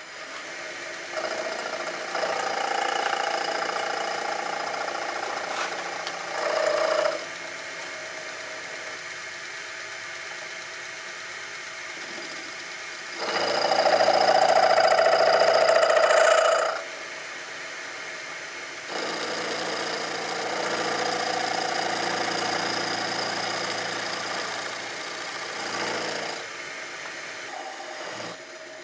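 Small metal lathe running steadily with a ball turning tool cutting a radius on the end of a connecting rod. The cut comes in three passes, the middle one about halfway through the loudest, each lasting a few seconds over the hum of the lathe.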